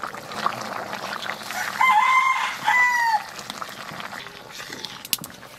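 A rooster crowing once, a two-part call about two seconds in that falls at its end, over the bubbling of a curry boiling in a wok on a wood fire.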